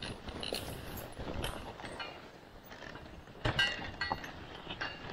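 A moving dog sled and its team: steady rattling and irregular clinking of sled and harness hardware, with a louder run of sharp, ringing clinks about three and a half seconds in.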